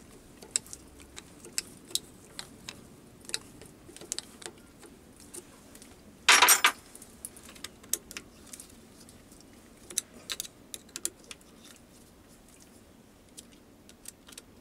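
Light metallic clicks and taps of an Allen key fitting into and turning the screws of a lathe boring head, loosening and adjusting its gib to set the bar's offset. One louder clatter lasting about half a second comes about six seconds in.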